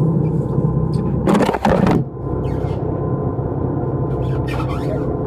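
Fishing boat's engine running steadily with a low hum. A loud burst of scuffing noise comes about a second and a half in, and fainter scrapes come near the end.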